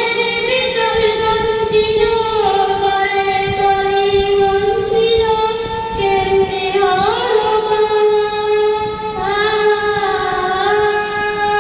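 A young girl singing an Islamic song solo into a handheld microphone, holding long notes that slide smoothly from one pitch to the next.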